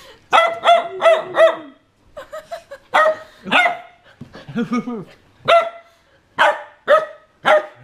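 A husky puppy barking repeatedly, about a dozen short barks in quick runs, warning a person away from its bone.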